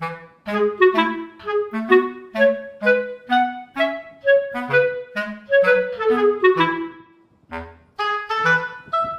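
Background music: a light tune of short, detached notes over a bass line, pausing briefly near the end before starting again.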